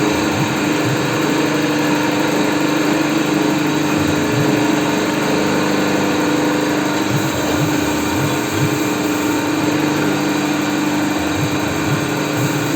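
Electric motor and hydraulic pump of a 140-ton hydraulic press running steadily, a constant even hum.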